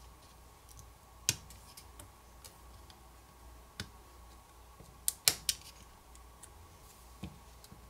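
Small sharp clicks, about six spread over several seconds, as a pry tool pops flex-cable connectors off the Asus Zenfone 6's main board; the loudest come as a quick run of three about five seconds in.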